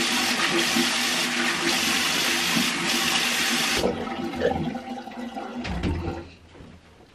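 Bathroom tap running into a sink as a face is washed; the flow cuts off suddenly about four seconds in, followed by a couple of seconds of softer splashing and handling sounds.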